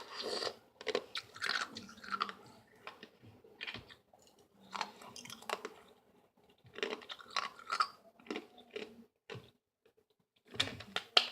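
Ice being crunched and chewed close to the microphone, in several clusters of crisp crunching separated by short pauses.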